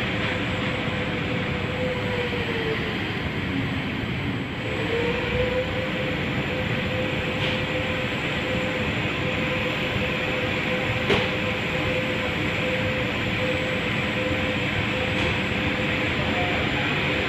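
Elevator traction machine running, with the steel hoist ropes travelling over the sheave through the rope lubricator's pads: a steady rushing drone with a whine that dips in pitch and rises again about three to five seconds in. A single sharp click comes about eleven seconds in.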